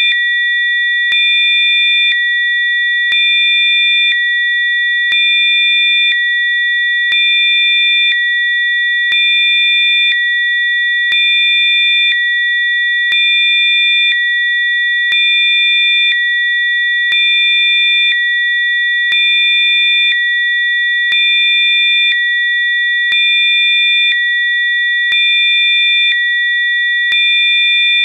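Rife frequency tone track: several pure electronic sine tones held together at high pitch, with the mix and loudness switching back and forth about once a second.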